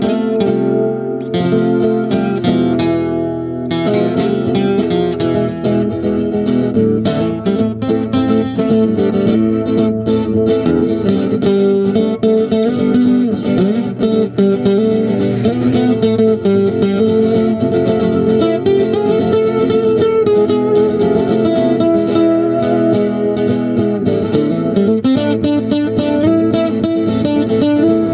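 Acoustic guitar playing a Spanish-style piece through a Boss VE-8 Acoustic Singer looper, with plucked and strummed guitar parts layered over one another.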